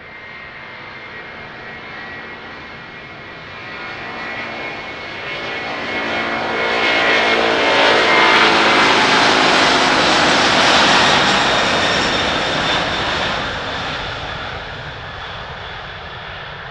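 Boeing 767-300ER twin-jet airliner at takeoff power on its takeoff roll, passing close by. The jet noise builds, is loudest about eight to eleven seconds in, and fades as the aircraft moves away, with whining engine tones dropping in pitch as it goes past.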